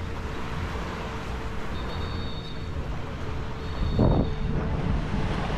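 Beach ambience: a steady low rumble of wind and surf under a steady motor hum, with a louder surge about four seconds in.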